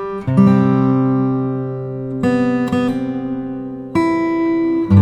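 Background music: acoustic guitar chords strummed and left to ring, a new chord struck about every second or two.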